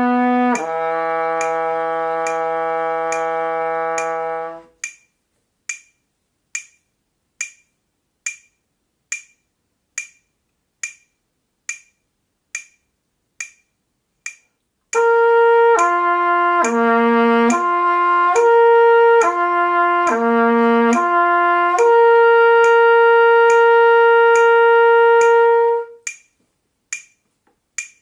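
Trumpet playing slurred lip-flexibility exercises on the first three harmonics against a metronome clicking at 70 beats a minute. A long held low note ends about five seconds in, and the metronome clicks on alone for about ten seconds. The trumpet then slurs a descending open-valve pattern, stepping between three notes, and ends on a long held note shortly before the end.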